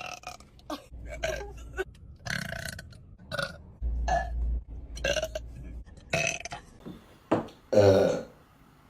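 A string of short burps from girls, one after another about every second, with a longer, louder, deep burp near the end.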